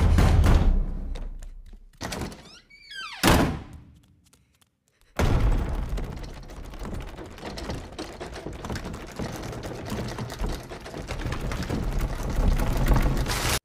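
Horror-film sound effects: a heavy thud right at the start that fades away, a wavering gliding sound followed by a second thud about three seconds in, then after a moment of near silence a sudden long noisy rumble that swells again near the end.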